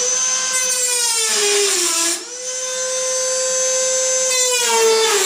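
High-speed grinder whining as it cleans up thin door-skin steel. It spins up, then its pitch sags each time it bears on the metal. It is let off briefly about two seconds in and brought straight back up to speed.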